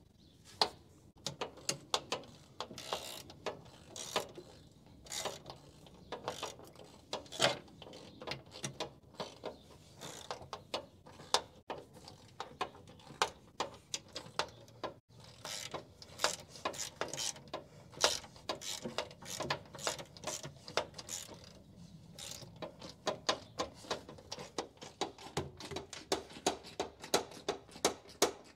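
Hand ratchet wrench clicking in quick runs of strokes, turning the bolts of a side access panel.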